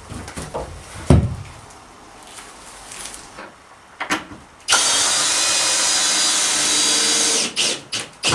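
A sharp knock about a second in, then a power drill runs steadily for about three seconds and stops abruptly.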